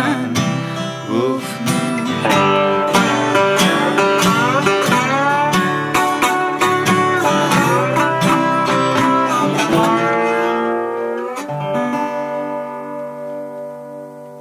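Guitar playing the instrumental ending of a folk song: quick plucked notes, some bent in pitch, then a final chord about eleven and a half seconds in that rings out and fades.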